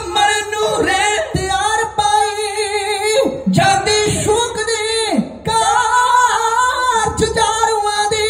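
Men singing a Sikh religious verse at full voice into microphones, heard through a PA loudspeaker, with long wavering held notes and sliding pitch.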